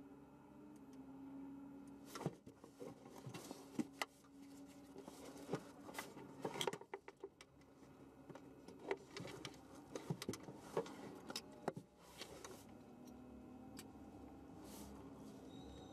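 Quiet cockpit of a stopped race car: a faint steady hum with scattered small clicks, knocks and rattles, most of them in the middle stretch.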